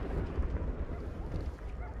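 Low rumble of fireworks explosions echoing and dying away between bursts of an aerial fireworks display, with no new bang.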